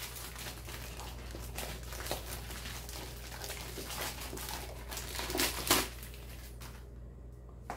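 Thin plastic bag crinkling and rustling as a wrapped RC crawler wheel is pulled out of it, with a louder burst of crackling about two-thirds of the way through that then dies down.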